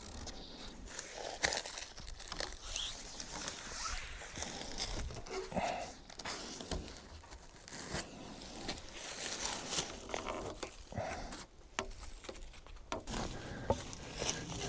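Faint rustling, crinkling and light knocks of hands tying a log to a tree with cord, along with shuffling steps on forest floor litter.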